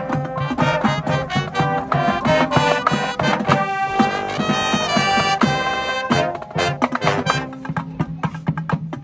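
Marching band playing: brass section over drums, swelling into a long held brass chord about four seconds in, then drum hits taking over with sparser brass near the end.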